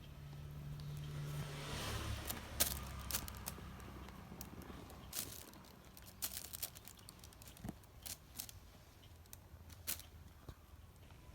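Scattered crackling and snapping rustles from a kitten playing in and tearing at cat grass blades. A low rumble swells and fades during the first few seconds.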